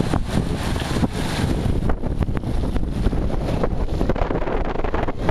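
Wind buffeting the microphone in a steady rumble, over the hiss and splash of water spraying from a pool's play fountain.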